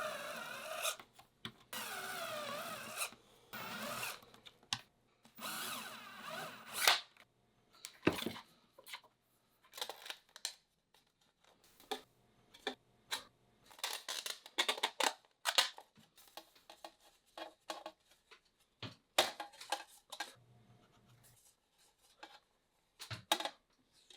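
Power drill whining in short bursts, its pitch rising and falling, as it bores holes through thin aluminum flashing. After that come scattered short clicks and scrapes of the metal and tools being handled.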